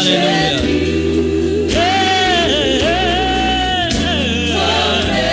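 Gospel worship choir singing long held notes over instrumental accompaniment, with a single spoken 'Hallelujah' at the start.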